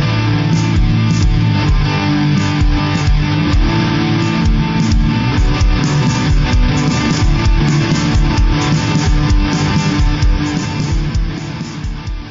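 Guitar-led outro music with a steady beat, fading out near the end.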